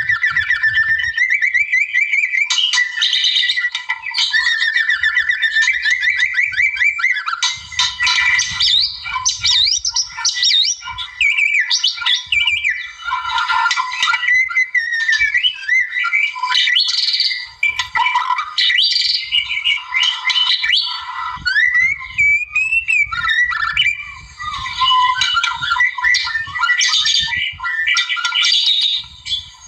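White-rumped shama (murai batu) singing without a break: a varied stream of loud whistled phrases, fast trills of quickly repeated notes, and rising slurs.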